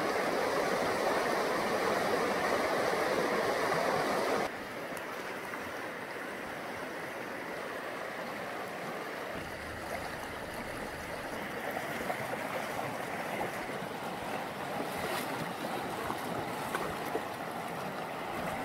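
Flowing river water, a steady rushing hiss. It drops abruptly in level about four and a half seconds in.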